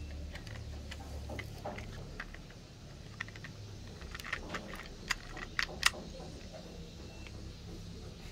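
Light, irregular clicks and taps of small plastic toy cars being handled, bunched together and loudest about five to six seconds in.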